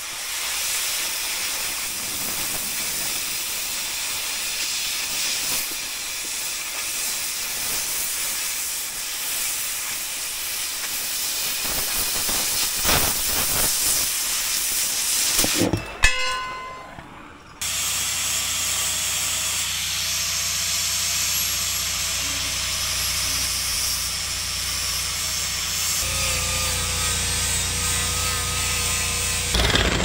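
Oxy-fuel cutting torch hissing steadily as it cuts through steel channel, ending in a sharp pop about sixteen seconds in. After a short lull, a cordless drill with a step bit runs steadily through the steel, its whine dropping in pitch a few seconds before the end.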